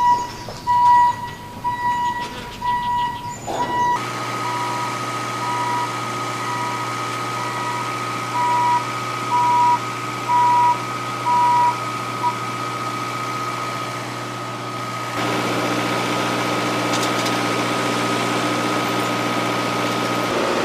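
Heavy work vehicle's reversing alarm beeping about once a second over its running engine; the beeping stops about twelve seconds in while the engine keeps running.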